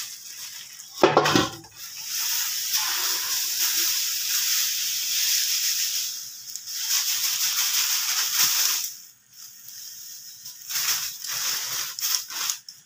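Semolina (suji) pouring from a plastic bag into a steel vessel: a steady hiss of running grains for about seven seconds, with the bag crinkling. There is a knock about a second in, and more rustling and clicks near the end.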